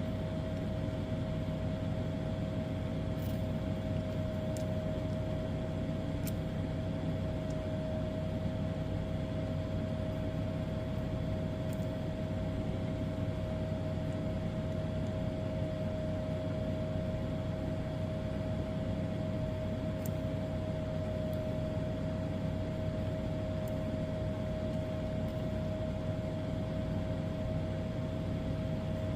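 Steady machine hum with a constant mid-pitched whine over it and a few faint ticks.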